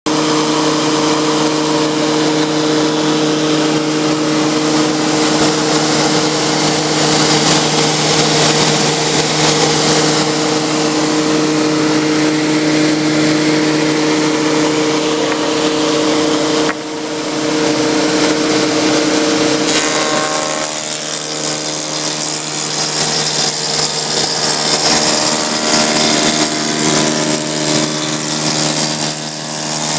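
A stationary woodworking machine running steadily, a motor hum over a broad whir. About two-thirds of the way through, its tone changes and becomes noisier.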